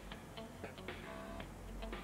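Instrumental background music playing from a television during a weather-forecast current-conditions segment, with a clock ticking.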